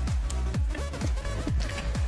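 Background electronic dance music with a steady, deep kick drum at about two beats a second.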